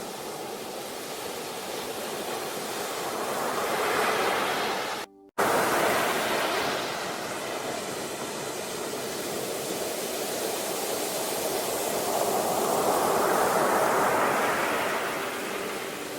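Sea surf washing on a shore, a steady hiss that swells and falls back as the waves come in, with a surge about four seconds in and another near the end. The sound drops out for a split second about five seconds in.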